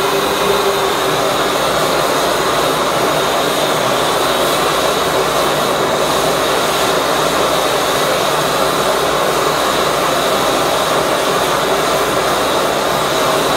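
High-velocity propane burner with compressed-air assist firing, a loud, steady rushing noise like a jet engine, with a faint steady hum.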